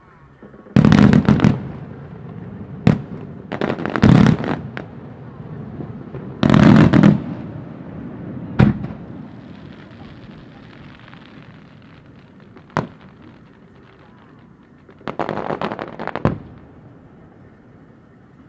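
Japanese aerial firework shells bursting in a thunder-themed display: four longer rolling booms and three single sharp bangs. Between the bursts their rumbling echoes hang on, like thunder.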